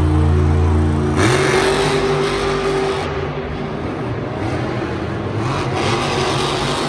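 Monster truck's supercharged V8 revs up sharply about a second in, holds a high steady pitch for about two seconds, then keeps running loud and rough. A steady low drone comes before it.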